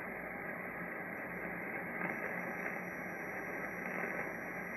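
Steady hiss of band noise from a uBitx HF transceiver's speaker, the receiver switched on and tuned to 14.246 MHz on upper sideband. The hiss is muffled, with no treble above the receiver's narrow audio passband.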